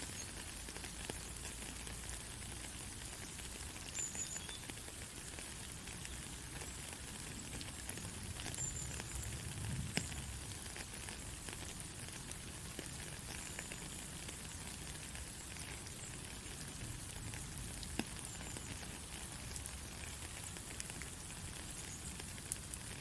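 Steady rainfall: an even hiss of falling rain with scattered sharper drop hits.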